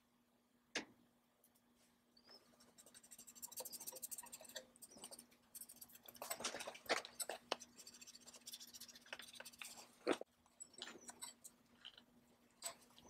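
Fingers rubbing and pressing a paper-backed decal down onto a painted metal motor housing: soft crackling, rustling and scraping, with a couple of sharp clicks, over a faint steady hum.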